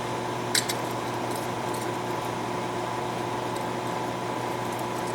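Steady hiss and hum of shop equipment running, with one light click about half a second in.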